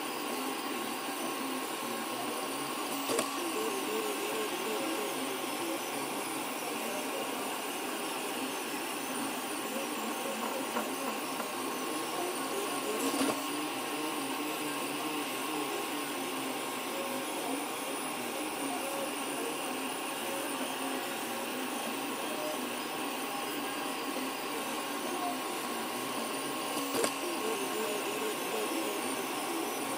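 DN10x700 delta 3D printer running a print: a steady whirring with the wavering whine of its stepper motors as the effector moves, and an occasional faint click.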